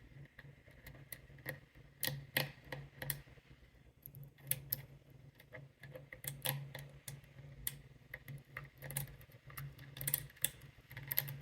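Lock pick and tension wrench working the pins of an American 1100 padlock, giving small irregular metallic clicks and ticks as pins are set and spool pins give feedback.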